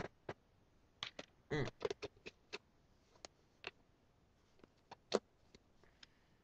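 Scattered light clicks and knocks of small objects being handled, irregular and spaced about a quarter to a second apart, with a brief low rubbing or murmuring sound about one and a half seconds in.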